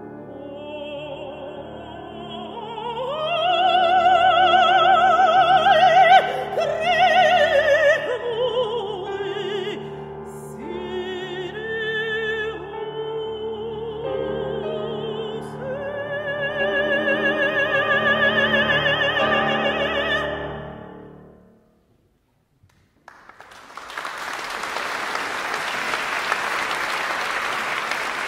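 Mezzo-soprano singing a Ukrainian art song with piano, her voice in wide vibrato, climbing to a loud high phrase a few seconds in, then ending on a long held note that dies away. After about a second of silence the audience applauds.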